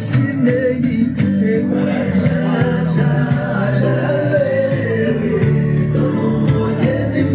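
Music with a singing voice over instruments, playing steadily.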